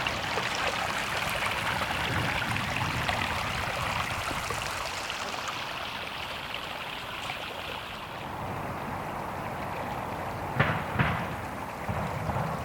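Running water, a steady rushing flow that grows a little thinner about halfway through. Near the end, ducks quack in a few short loud calls.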